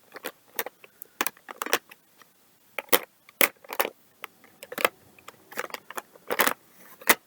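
Laptop keyboard being tapped: irregular sharp key clicks, some in quick pairs, with the loudest strikes about three and a half seconds in and near the end.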